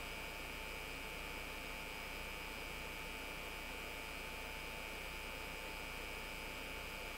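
Steady electrical hum and hiss with a thin, unchanging high whine.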